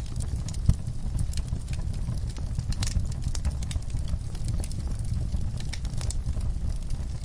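Fire crackling, with irregular sharp pops and snaps over a steady low rumble. A louder pop comes just under a second in.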